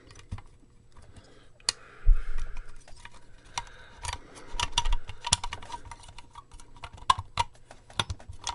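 Irregular clicking, tapping and scraping as an amplifier's circuit board, with its potentiometers and power switch, is worked into its case by hand. There are heavier knocks about two seconds in and again around four to five seconds.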